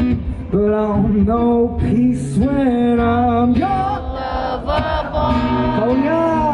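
Male voice singing a pop melody live, gliding between long held notes, with the acoustic guitar dropped far back.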